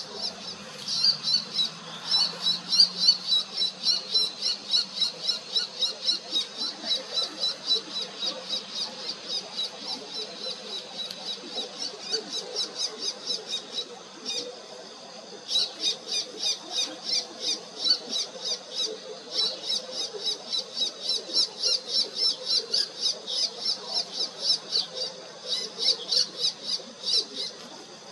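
Bull-headed shrike giving its territorial call: a long run of high, sharp notes, about four a second, with a short break about halfway through.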